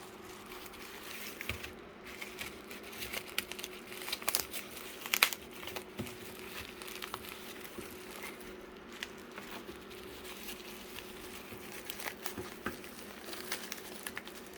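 Packaging being worked open by hand: crinkling and rustling with scattered clicks and taps, one sharper knock about five seconds in, over a faint steady hum.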